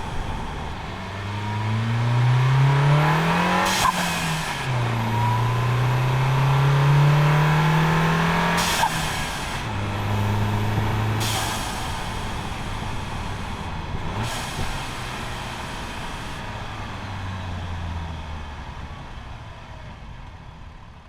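VW MK7 Golf's turbocharged engine pulling hard twice, rising in pitch each time, with a sudden hissing flutter from the diverter valve, opened up by an atmospheric spacer, when the throttle closes about four and nine seconds in, and two shorter ones a little later. After that the engine settles and slows, fading near the end.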